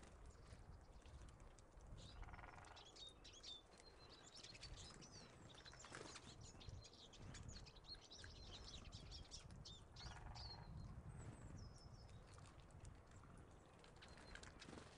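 Small songbirds chirping and twittering faintly, with a busy run of quick high calls from about two seconds in until about eleven seconds, over a low rumble.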